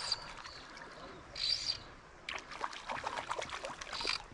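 A hooked trout splashing and thrashing at the surface of shallow water, with a rapid, irregular run of splashes from about halfway through. Short high chirps recur over it.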